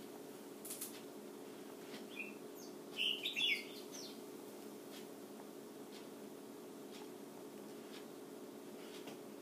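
A female shama giving a few short, high squeaky chirps, once about two seconds in and then a quick cluster a second later, over a steady low hum.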